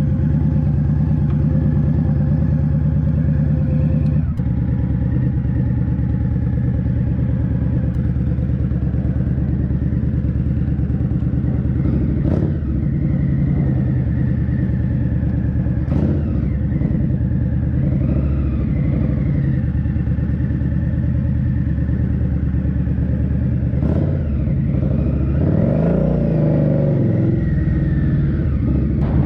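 Indian Scout Bobber's V-twin engine running steadily on the move, with a few brief clicks and the engine pitch wavering and shifting near the end.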